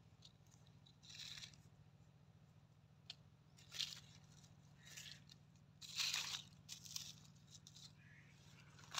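A few short, faint rustles and crunches of dry leaf litter and soil being disturbed, the loudest about six seconds in, over a faint steady low hum.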